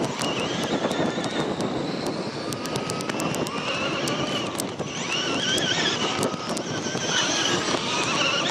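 Traxxas E-Maxx electric RC monster trucks driving on sand: a motor and gear whine that rises and falls with the throttle over a steady rush of noise. The whine grows louder in the second half as a truck comes near.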